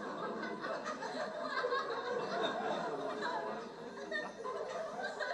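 Audience in a hall chuckling and murmuring, with scattered laughter.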